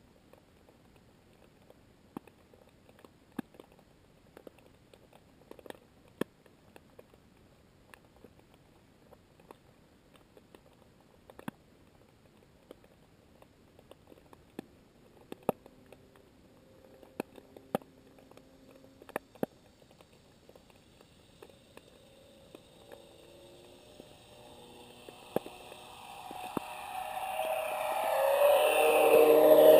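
Underwater recording: scattered sharp clicks, then a motorboat's engine grows steadily louder over the last third as the boat approaches, a drone with a few steady tones.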